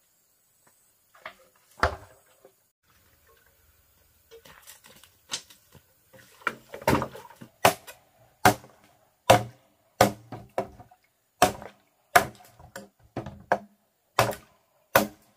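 Sharp, regular blows of a hand tool on bamboo, a little more than one a second with a short ring after each, beginning about seven seconds in. Before them come a few scattered knocks and faint rustling.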